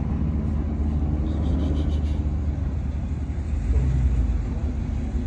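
Dodge Challenger SRT's V8 idling with a steady low rumble that swells briefly about four seconds in.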